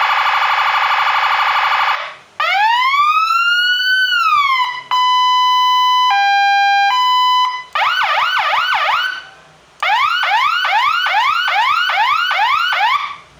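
Senken 60-watt siren module sounding through a Narae NSH70 12-watt speaker, switched from tone to tone with short gaps between them. First comes a harsh buzzing horn tone, then one slow wail rising and falling, then a two-tone high-low. It ends with fast rising whoops, about four a second.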